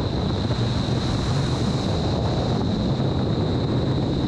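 Indoor skydiving wind tunnel airflow rushing steadily up through the flight chamber and buffeting the microphone, with a steady high whine over it.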